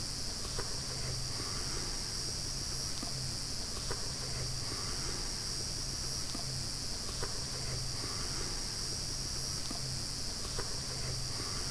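Steady insect chorus, a high even buzz, over a low steady hum, with a few faint small clicks.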